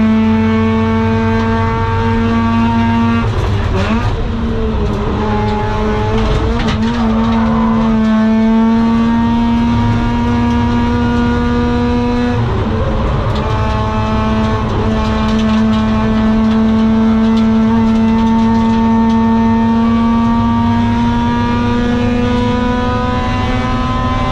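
Mazda RX-8's 13B Renesis rotary engine running hard through a long-tube exhaust with a Borla muffler. Its note holds high, drops and wavers about three seconds in, dips again about twelve seconds in, then climbs slowly as the car pulls through a gear.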